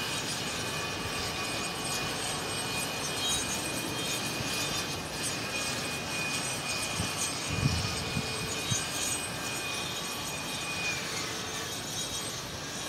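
Steady construction machinery noise mixed with wind, about equally loud. A thin high whine runs through it and fades near the end, and a few low wind buffets hit the microphone about halfway through.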